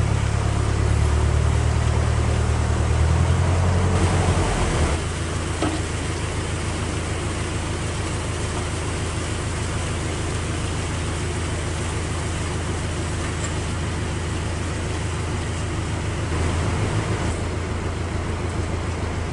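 Narrowboat diesel engine running with a low, even beat. It is louder for the first few seconds, drops back about five seconds in, and swells briefly near the end.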